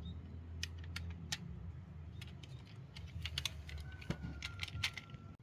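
Irregular light clicks and clacks of small plastic toy vehicles being handled, coming more often in the second half, over a low steady hum. A faint steady high tone sounds for about a second and a half near the end.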